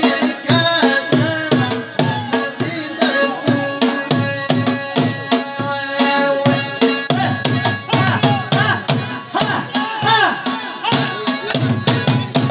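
Balochi chaap dance music: a dhol drum beats a steady, driving rhythm while a melody winds and slides above it.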